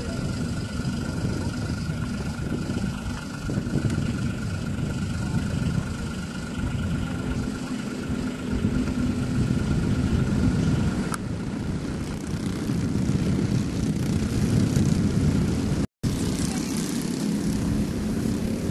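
A pack of racing karts' single-cylinder four-stroke engines (LO206 and clone) buzzing as they race through the corners and past. The sound cuts out for a moment about three-quarters of the way in.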